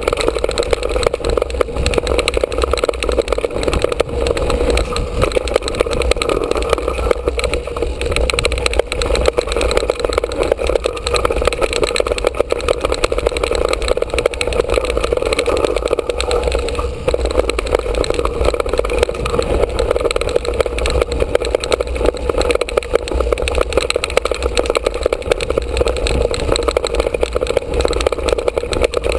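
Mountain bike riding down a dirt trail, heard through a camera mounted on the bike: a steady, loud rumble and rattle of tyres on dirt, frame and camera vibration, and wind on the microphone.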